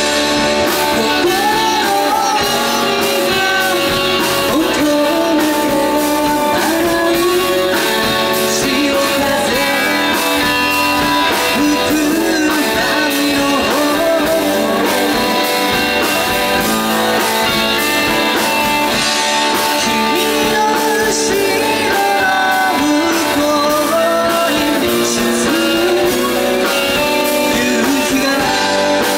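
Live band playing a song: acoustic guitar, electric guitar, bass, keyboard and drums with a steady beat.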